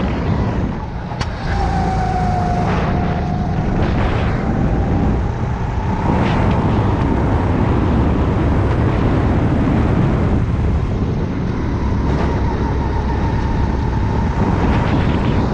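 Rental go-kart engine running hard, heard from on board the kart. It eases briefly about a second in, then pulls steadily again.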